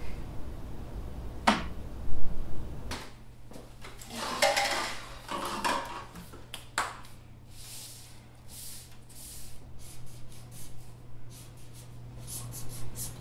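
A felt-tip marker writing on sheets of paper on a wooden table, heard as a run of short scratchy strokes, after a rustle of paper being handled. A couple of sharp clicks come in the first few seconds.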